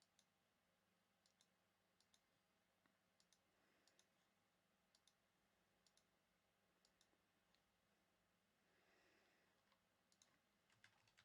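Faint computer mouse clicking, mostly in quick pairs like double-clicks, about one pair a second. A soft brief rustle comes about nine seconds in.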